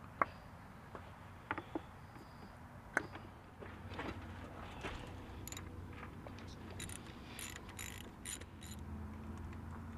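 Faint clicking of a socket ratchet working loose a spark plug, with small metallic taps of the tool. A few scattered clicks come first, then a denser run of quick clicks in the second half.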